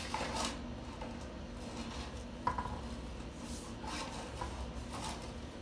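Drain inspection camera's push cable being worked along the pipe: scattered scrapes and light clinks, one sharper click about halfway through, over a steady low hum.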